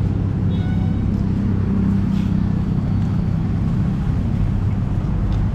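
Steady low rumble of road traffic, with wind on the microphone.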